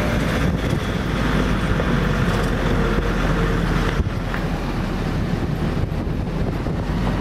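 Car engine and road noise heard from inside a moving taxi, steady throughout, with some wind across the microphone.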